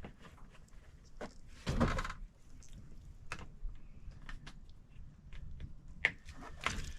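Scattered light clicks and knocks of gear being handled, with a louder scuffing noise about two seconds in and a sharp click near the end; no saw is running.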